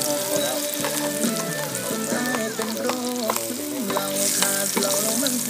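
Food frying in garlic butter in a pan: a steady sizzle with scattered clicks and scrapes of a utensil stirring, the sizzle swelling briefly a little after four seconds. A song plays underneath.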